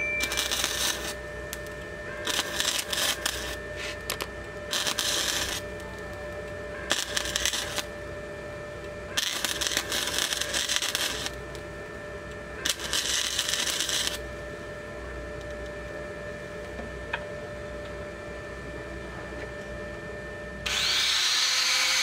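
MIG welder arc-welding in short bursts, about eight crackling bursts of half a second to two seconds each over a steady hum. About 21 s in, an angle grinder spins up and runs.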